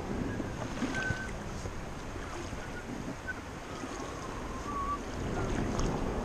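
Steady wash of river water with wind buffeting the microphone, and a few faint short chirps.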